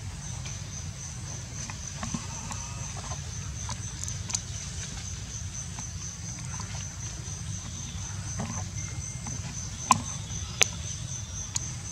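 An insect chirping steadily in the background, a high pulsing note repeating about four times a second, over a low rumble. Two sharp clicks stand out near the end.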